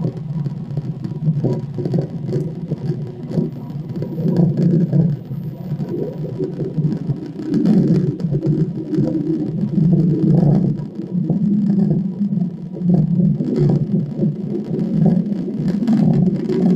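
Recorded airplane engine drone played back from a computer: a low, steady hum that swells and fades over several seconds.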